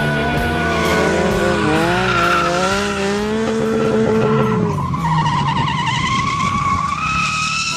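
Motorcycle engines revving up and down while the tires squeal and skid in a drift, with a wavering high-pitched squeal in the second half.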